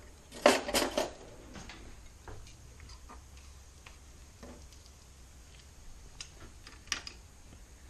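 Metal cutlery clinking in a drawer as a fork is picked out: a few sharp clinks about half a second in. Then faint, scattered ticks of the fork against the pasta pot while stirring, with a sharper tick near the end.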